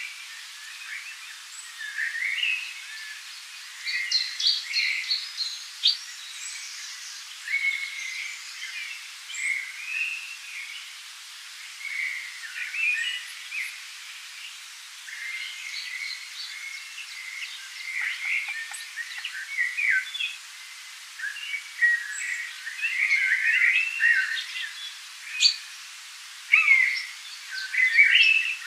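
Several birds singing and calling together in a forest chorus: many short, high-pitched chirps, whistles and trills overlapping one another, with no let-up.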